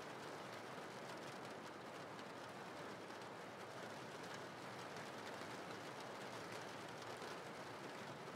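Steady rain falling, an even hiss with a fine patter of drops.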